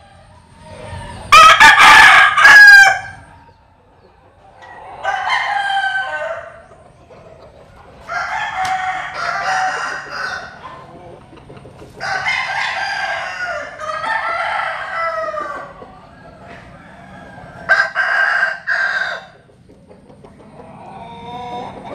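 Roosters crowing, one crow after another about five times; the first, about a second in, is much the loudest.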